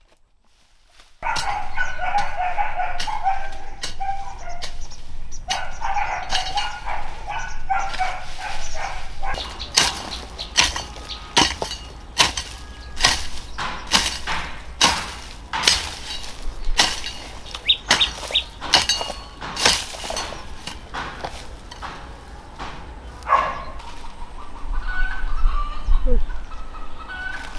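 Chickens clucking, then a garden hoe chopping into weeds and soil in a steady run of sharp strikes, about two a second, with the clucking going on around it.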